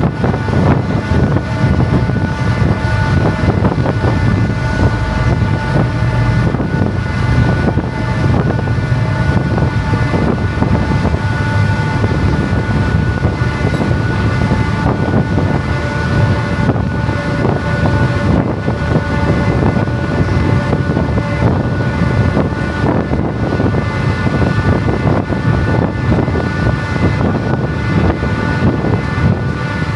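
Fastcraft's engines running steadily under way: a constant low rumble with a steady whine above it. Wind is buffeting the microphone on the open deck.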